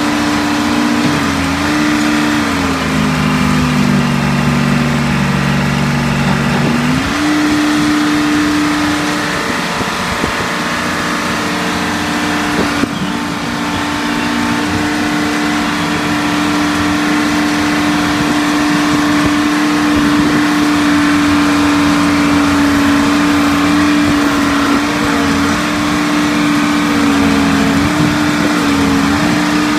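Badger Hydro-Scopic 460 excavator engine running steadily at high speed. A few seconds in, its pitch sags for about five seconds, then climbs back; it wavers briefly again near the end.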